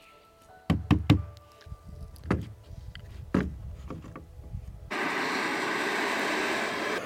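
Wooden boards knocking and thudding a few times, loudest about a second in, as a wooden gable panel is handled and ridge boards are fitted. About five seconds in, a handheld butane blowtorch comes on with a sudden, steady hiss as it scorches the wood.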